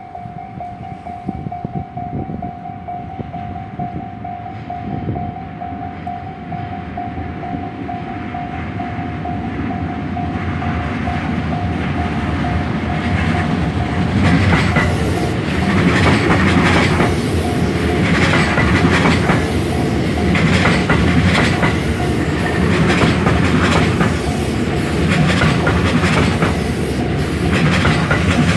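A level-crossing warning bell rings with a steady tone as a JR West 323 series electric train approaches. The train grows louder and, from about halfway in, passes close by, its wheels clacking over the rails about once every second and a half.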